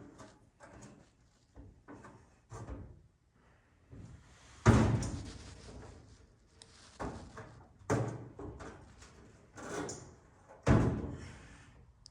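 Irregular knocks and thumps as a new racing fuel cell is handled and set into its mounting hole in a car to test the fit: about a dozen bumps, the loudest a heavy thud about five seconds in, with several more firm knocks near the end.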